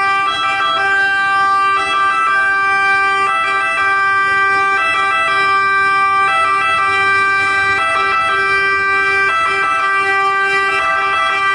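Sirens of several ambulances and rescue cars sounding together: Italian two-tone emergency sirens, overlapping steady tones that switch pitch every second or two.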